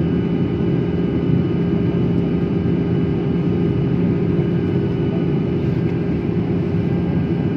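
Cabin noise of a jet airliner on descent: a steady engine drone with a low hum and a few steady higher tones over a constant rush of air.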